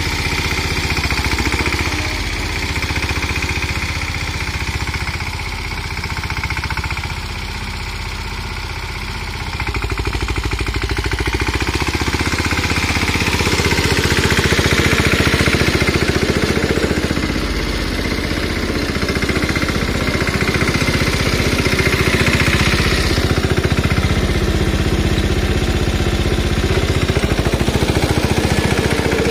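Mahindra 215 compact tractor's single-cylinder diesel engine running steadily with a fast, even beat as it pulls a small rotavator through the soil. It gets louder about ten seconds in.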